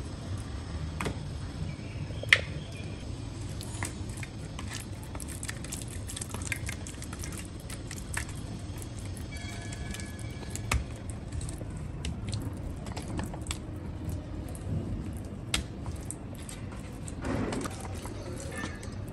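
Hands rubbing a wet masala paste onto raw fish steaks in a stainless steel plate: soft squishing with scattered clicks and taps of fish and fingers against the steel, one sharper click about two seconds in, over a steady low hum.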